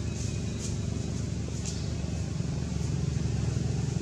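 Steady low rumble of an engine running, with a few faint high ticks over it.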